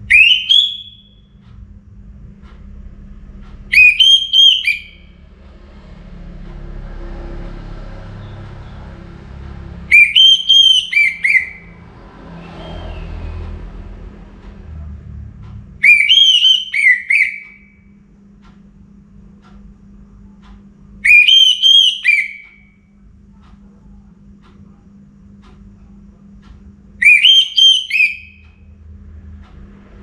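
Caged orange-headed thrush singing its loud, clear whistled song (the ngeplong style prized by keepers): six short phrases of quick rising and falling whistles, one every five or six seconds.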